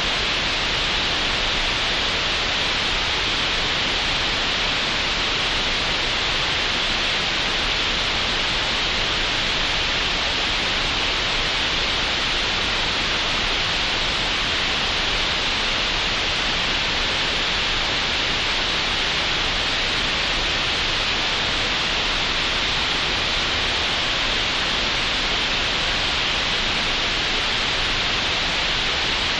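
Computer-generated green noise made in Audacity: a steady, unchanging hiss, strongest in the upper middle range and with nothing above the top of the treble.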